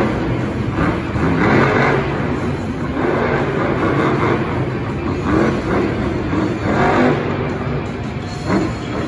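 Monster truck engine revving up several times over a steady running note as the truck drives across the dirt arena floor.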